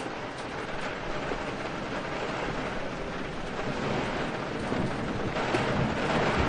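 Steady rain with wind, swelling about four seconds in as a low rumble of thunder builds under it, the rain getting louder toward the end.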